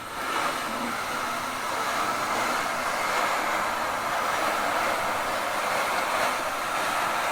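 Woodland Mills HM130 Max bandsaw mill running through a cut in a big log: a steady, even noise of the blade in the wood with the engine under load.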